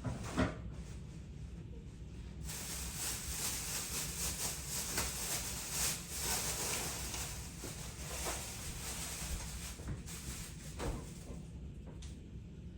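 A knock, then a kitchen tap running in a steady hiss for about seven seconds before it is shut off, with small clatters under the water.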